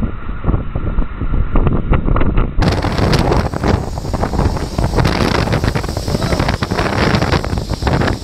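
Wind buffeting the microphone with the rushing hiss of snow tubes sliding fast over packed snow, in irregular gusts.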